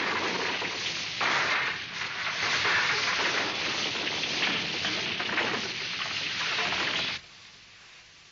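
Cartoon sound effect of a burning castle collapsing: a loud, dense rushing noise of fire and falling debris that swells about a second in and again around three seconds. It drops away abruptly near the end, leaving a faint hiss.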